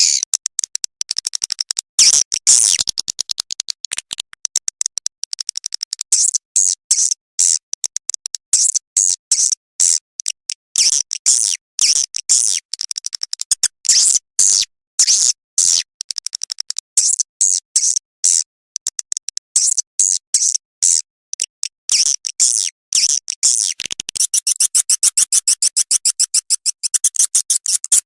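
Swiftlet lure call track: recorded swiftlet calls played back as rapid trains of high chirps and clicks, in bursts with short gaps, used to draw swiftlets into a nesting house.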